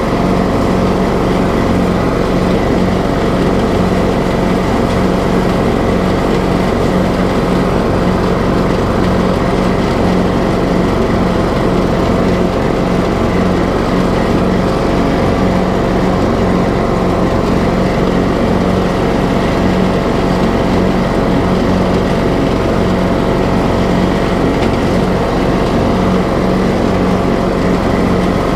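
TroyBilt riding lawn mower engine running steadily at a constant speed as the mower drives across grass.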